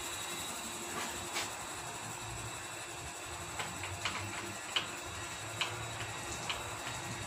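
Metal souvlaki skewers clicking lightly and irregularly, about half a dozen times, as they are set onto a motorized charcoal rotisserie, whose spit drive runs with a faint low hum.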